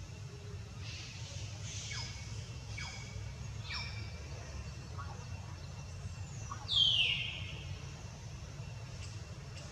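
Young macaque monkeys giving short, high-pitched squeals that fall in pitch, about one a second, with one louder squeal about seven seconds in. A steady low rumble lies underneath.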